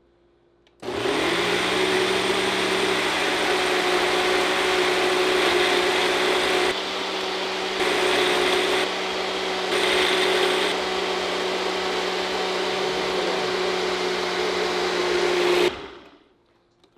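Ninja personal blender motor starts about a second in and runs steadily for about fifteen seconds, blending ice, banana and cooked rice into a shake. Its level drops and rises a few times partway through. Near the end it cuts off and spins down.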